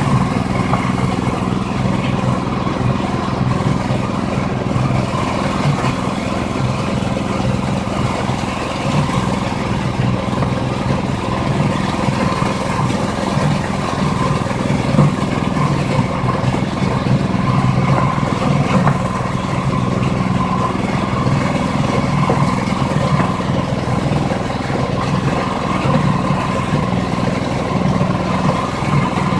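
Livestock feed blender machine running steadily, a continuous even machine drone with no changes in speed.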